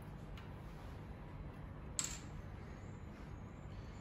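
Small plastic toy parts being handled and fitted together: a couple of light clicks, the sharpest about two seconds in, over a faint low room hum.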